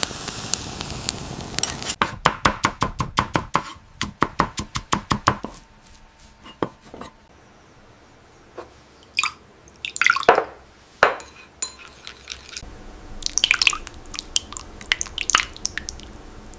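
Kitchen work: a sizzle dies away in the first couple of seconds, then a quick, even run of knife chops on a cutting board, about six a second, for three seconds or so. After that come scattered clinks, taps and swishes of utensils and dishes.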